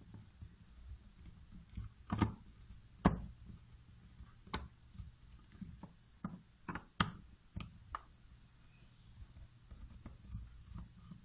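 Plastic back cover of a US211M Lite digital flow meter being pried off by hand: a series of sharp clicks and knocks as the plastic catches give, the loudest about three and seven seconds in.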